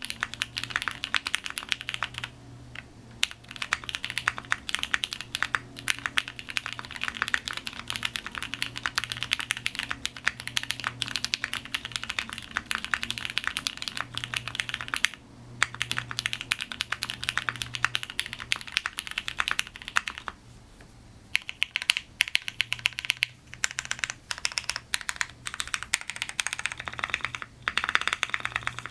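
Continuous fast typing on a Matrix 2.0 Add TKL mechanical keyboard with lubed pre-tooled Cherry MX Brown tactile switches in an aluminium plate and GMK keycaps. The keystrokes come in dense runs with a few brief pauses.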